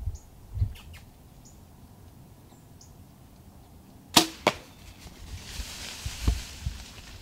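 A bow shot about four seconds in: a sharp snap of the string, then a second crack a third of a second later as the arrow strikes. Rustling and a few low thumps follow.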